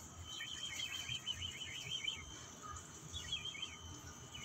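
Small birds twittering in rapid, irregular high chirps, in a burst of about two seconds and a shorter one about three seconds in, over a faint steady high whine.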